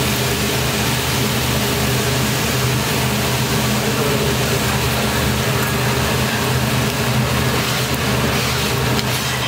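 Fried rice sizzling steadily on a hot teppanyaki griddle, over a constant low hum.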